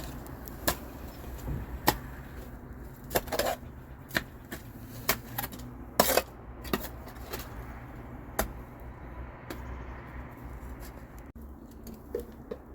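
Scattered sharp clicks and knocks of tools and pipe fittings being handled during plumbing repair work on a broken pipe, over a steady low hum.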